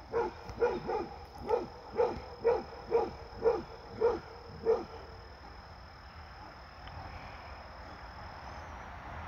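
Basset hound barking repeatedly at a deer, about ten barks at roughly two a second, stopping about five seconds in.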